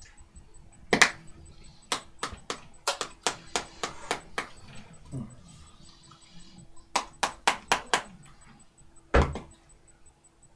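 Sharp clicks and taps in irregular runs, at times about three a second, with a heavier thump near the end.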